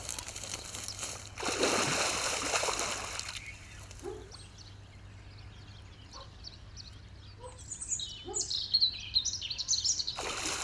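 Water splashing hard for about two seconds near the start and again at the end, as a hooked pike thrashes at the surface. In between, birds sing with short, high chirps.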